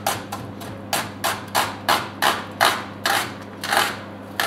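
Santoku knife slicing an onion thinly on a plastic cutting board: a steady run of knocks as the blade strikes the board, about three a second.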